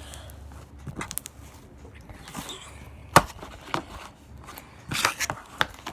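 Fluffy glitter slime being squeezed and played with by hand, giving a few sharp pops and clicks, the loudest about three seconds in.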